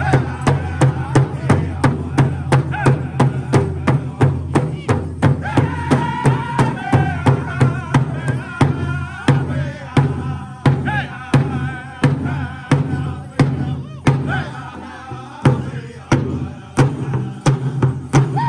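Powwow drum group: several men singing together while beating a large shared hand drum with sticks in a steady beat, about three strikes a second. The singing and drumming grow quieter over the last few seconds as the song winds down.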